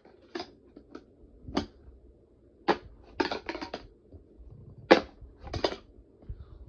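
Bare plastic fingerboard deck with no trucks or wheels clacking and tapping against the ramp as it is flicked into ollies with the fingers: about a dozen sharp clacks, with a quick run of them a little past three seconds in and the loudest near five seconds.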